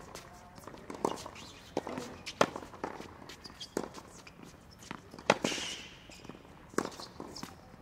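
Tennis forehand rally on a hard court: sharp pops of the ball off the racket strings and the court surface, about one every second, with shoe scuffs on the court between them.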